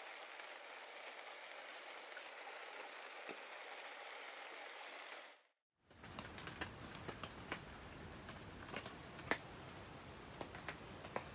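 Steady rain, an even hiss, which fades out about five seconds in. After a short gap, heavy rain outside a tent returns, with many sharp, irregular ticks of drops striking close by.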